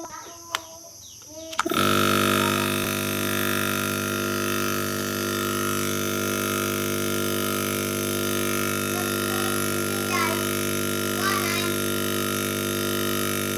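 A steady machine hum with a strong hiss switches on abruptly about two seconds in and runs on evenly.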